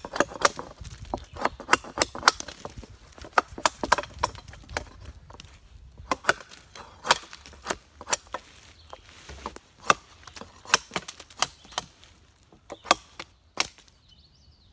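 ESEE Junglas large-bladed knife chopping into a dead wooden branch while cutting a shelter support pole: a string of sharp, irregular strikes, about two or three a second, that stop shortly before the end.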